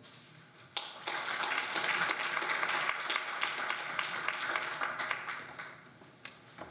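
Audience applause, starting about a second in and dying away near the end.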